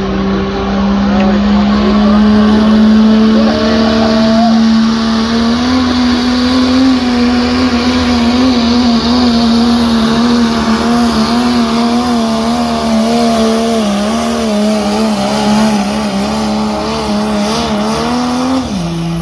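Pro stock diesel pickup's engine held at high revs under full load while pulling a weighted sled, its pitch steady with slight wavering. Near the end the engine lets off and the pitch drops.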